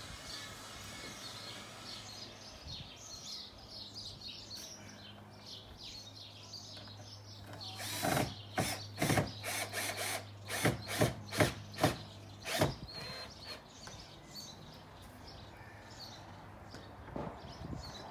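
Cordless drill-driver running steadily as it drives screws into timber boards. A little past the middle comes a run of loud clicks, two or three a second, for about four seconds, and then the motor stops.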